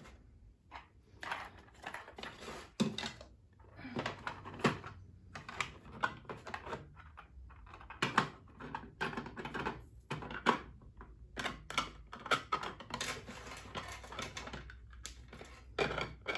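Irregular clicking and clattering of small craft accessories being handled, sorted and set down into a toolbox.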